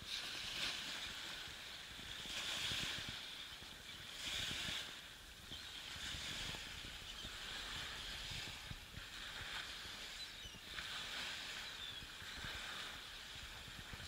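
Small Baltic Sea waves lapping and washing up a sandy shore, swelling and easing every couple of seconds.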